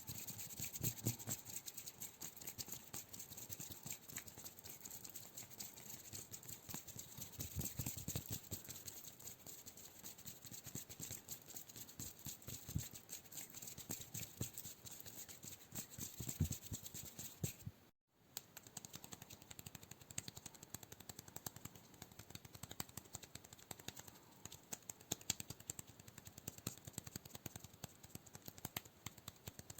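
Close-miked ASMR hand sounds: a dense run of light, quick crackling, tapping and scratching. The sound cuts out briefly about 18 seconds in, then carries on.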